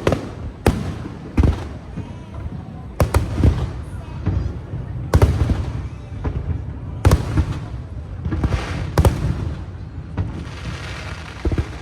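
Aerial fireworks shells bursting: sharp bangs every second or two, each followed by a low rumbling echo, with a stretch of crackling near the end.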